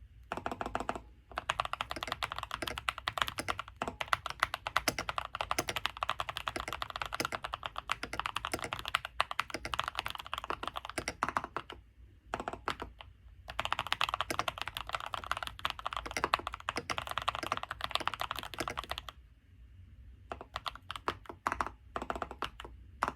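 Fast, continuous typing on a keyboard, keys clicking in quick runs. The typing breaks off briefly about twelve seconds in and again near nineteen seconds, then goes on as scattered keystrokes near the end.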